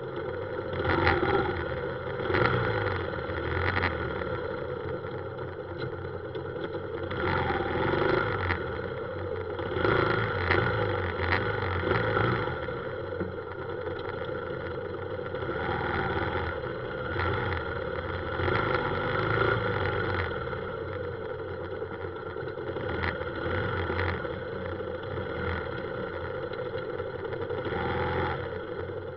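Motorbike engine running in stop-and-go city traffic, with the road and traffic noise around it, picked up by a camera mounted on the moving bike. The engine note swells and eases several times as the bike creeps forward.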